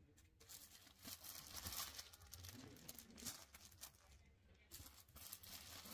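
Faint rustling and crinkling as folded sarees are handled and laid out on a table, with a few small soft knocks.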